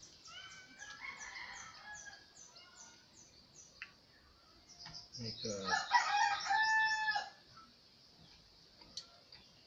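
A rooster crows once about five seconds in, one long call of about two seconds that rises quickly and then holds. Small birds chirp steadily and rapidly throughout, and there are a couple of faint clicks.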